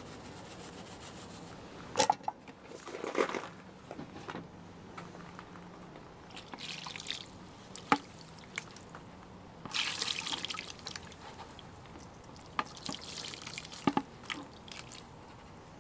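Water trickling and dripping from a plastic gold pan onto wet black sands in a tub as gold fines are rinsed out of the pan, in short splashy spells. A few sharp taps stand out, about 2, 8 and 14 seconds in.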